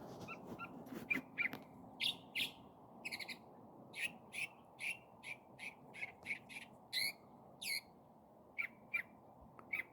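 A small songbird chirping: short, sharp chirps repeated about one or two a second, with a brief pause near the end, over a faint steady background hiss.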